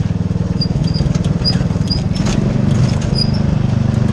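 Lawn mower engine running steadily with a fast, even pulse as it tows a metal wagon over rough forest ground, with knocks and rattles from the bumping wagon. Short high squeaks repeat throughout.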